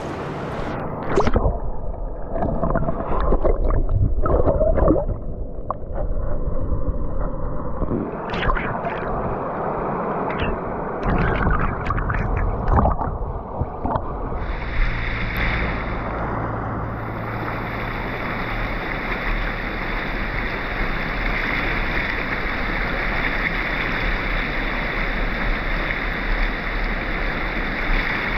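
River water: muffled, irregular splashing and sloshing as a hand lowers a small fish into the shallows, then about halfway through it switches abruptly to a steady rush of flowing water over rapids.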